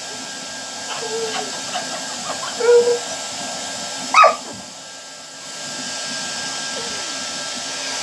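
Handheld hair dryer blowing steadily while a puppy gives a few short whines and yips at it. The loudest is a quick yelp about four seconds in, and the dryer's noise dips briefly just after it.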